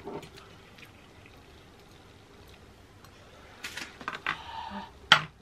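Close-miked eating sounds: quiet for the first few seconds, then chewing and mouth noises with a fork working in a plastic takeaway container, ending in one sharp click.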